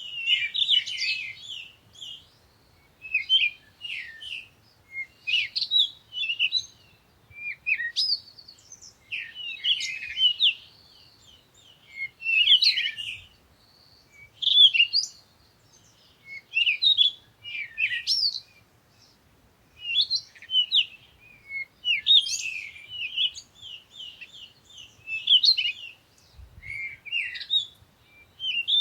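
Songbirds singing: short, rapid phrases of high chirps and trills, one every second or two, with brief pauses between.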